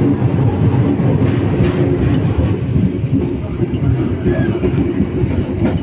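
Local passenger train running along the track, heard from aboard: a steady low rumble of wheels on rails and running gear.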